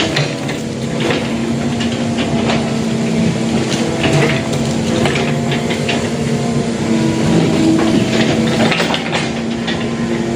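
Excavator's diesel engine running steadily under load, with repeated metallic clanks and knocks from the machine working in the mud.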